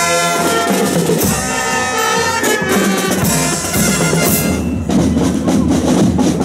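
Procession band music: brass playing a tune over drums, then about four and a half seconds in, the brass drops away and drums alone beat on, bass and snare.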